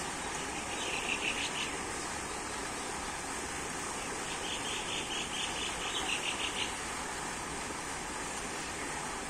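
Two bursts of rapid, evenly pulsed high chirping from an unseen animal, at about six chirps a second: a short one about a second in and a longer one from about four to nearly seven seconds in. Under them runs a steady rushing background noise.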